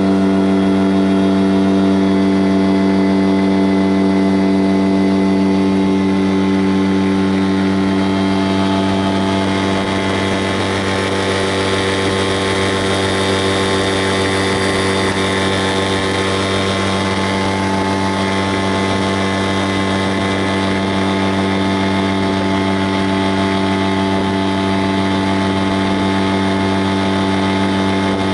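A vehicle engine running at a constant speed, giving an even hum that holds one pitch throughout. A hiss of wind or road noise swells for a while around the middle.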